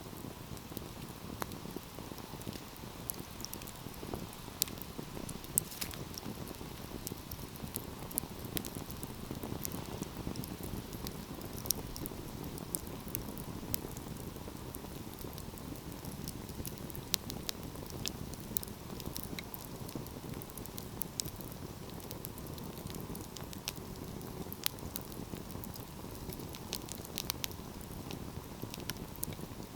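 Wood fire burning with a steady low rush of flames and frequent sharp, irregular crackles and pops from the burning logs.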